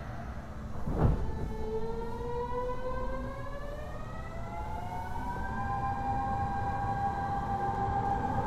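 Series 50 subway car's Mitsubishi Electric GTO-VVVF traction inverter whining as the train pulls away from a station: after a thump about a second in, several tones rise together in pitch as it accelerates and level off into a steady whine over the last few seconds, over a low running rumble.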